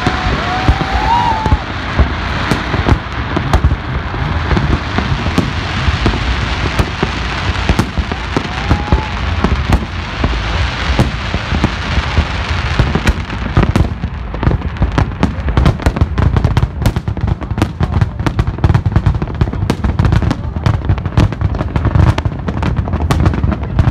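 Fireworks display: aerial shells booming continuously under a dense wash of crackle. From about halfway on, a rapid run of sharp crackles and pops stands out over the booms.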